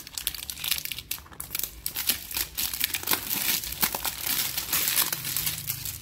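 Clear plastic shrink-wrap being peeled and crinkled off a phone box by hand: a dense, irregular crackling, loudest in the middle.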